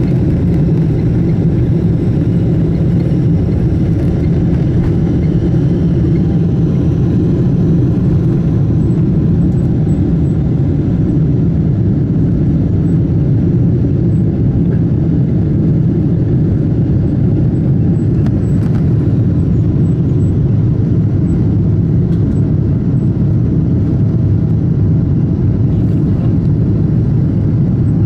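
Boeing 777-200 engines running at takeoff thrust, heard from inside the cabin over the wing: a loud, steady, low noise as the airliner leaves the runway and climbs away.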